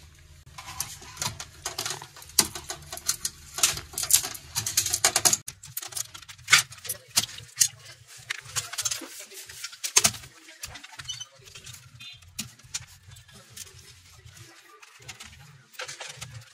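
Irregular clicks, taps and light rattles of small parts being handled on the plastic bottom case of a Lenovo G50-70 laptop while it is taken apart, with a few sharper knocks scattered through.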